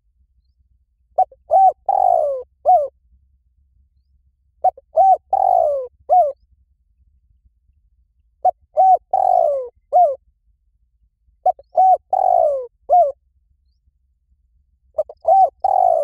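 Spotted dove cooing: a phrase of two short coos, a longer falling coo and a last short coo, repeated about every three and a half seconds, five times.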